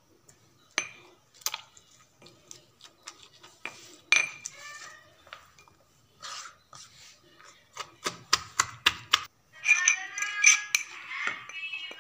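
Steel pestle knocking and clinking in a steel mortar as tomato, chillies and sliced radish are pounded for a pickle, with irregular strikes and then a quick run of about five or six knocks a second. Near the end a louder, higher pitched ringing sound joins in.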